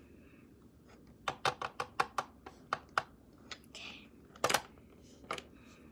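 Quick run of light, sharp clicks and taps from small plastic dollhouse toys being handled and set down, a figure placed on a toy chair at a toy desk, with a louder clatter about four and a half seconds in.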